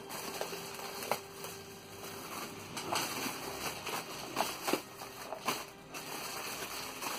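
Clear plastic wrapping crinkling and crackling in irregular bursts as hands pull it off packaged boxes, with a few light knocks of the boxes being handled.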